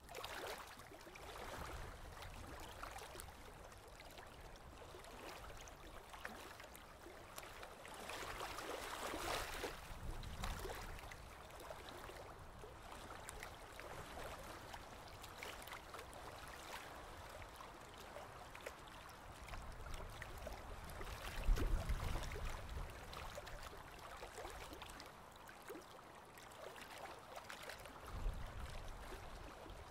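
Waterfront ambience: choppy water lapping below the pier, with gusts of wind on the microphone, the strongest about two-thirds of the way through.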